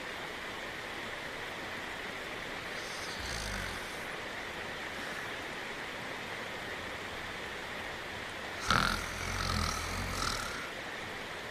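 Steady rain hiss with a cartoon dog's snoring over it: a faint snore about three seconds in, then a louder snore that starts suddenly near the end and trails off over about two seconds.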